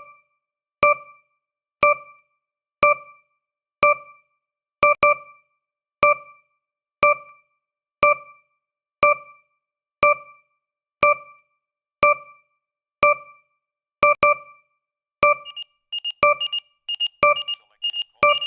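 Countdown timer sound effect: a short pitched beep once a second that dies away quickly. About fifteen seconds in, it turns into a faster, busier run of beeps, the alarm for the last seconds of the countdown.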